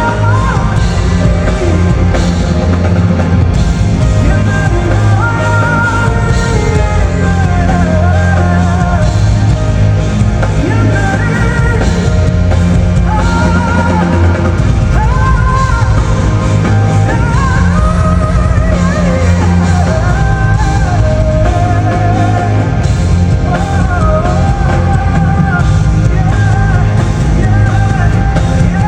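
Loud live band music with a singer's melody winding over heavy bass and drums, recorded on a phone in the concert crowd.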